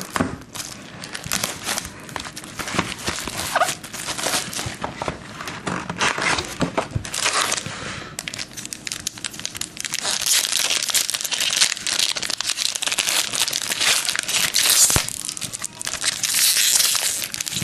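Cardboard trading-card box being torn open and handled, then a foil card pack crinkling and tearing open by hand. The crinkle gets louder and brighter about halfway through.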